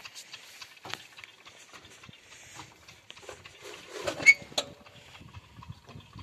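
Scattered clicks, knocks and rustling as someone climbs onto a tractor and handles its controls, with one louder sharp clunk about four seconds in.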